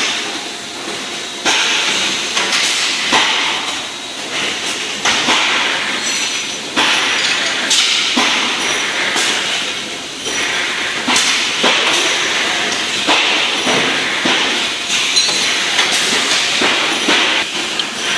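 Stangherlini three-axis CNC tube-bending machine working through its cycle: a steady hiss with a sharp clunk or knock every second or so as it clamps, feeds and bends the tube.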